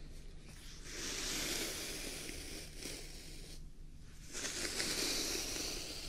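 A brush drawn through a long, thick beard close to a binaural microphone: two long brushing strokes, the first starting about a second in and the second about four seconds in.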